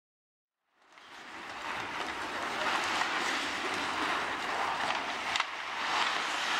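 Ice hockey rink sound during live play: a steady scraping hiss of skates on the ice with a few sharp clicks, fading in about a second in after silence.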